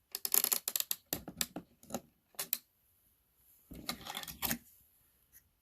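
Bursts of hard plastic and metal clicks and clatter from computer parts being handled and fitted on a motherboard. There are five or so separate flurries, the longest about four seconds in.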